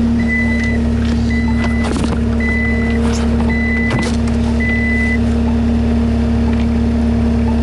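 New Holland skid steer's diesel engine running steadily while its backup alarm beeps five times, about once a second, then stops. A couple of knocks from the machine come through near the middle.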